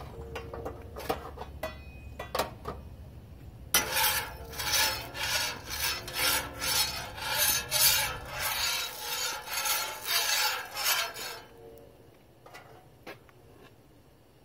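Metal spatula scraping back and forth across the steel top of a Blackstone flat-top griddle, spreading a coat of oil, at about two strokes a second. The scraping starts about four seconds in after a few light clicks and stops a few seconds before the end.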